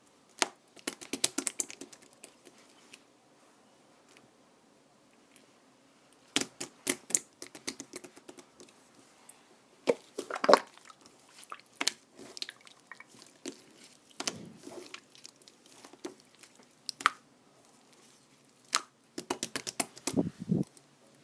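Clear transparent slime squeezed and pressed by hand, making bursts of wet, sticky clicks and pops with short pauses between handfuls; the loudest burst comes about ten seconds in.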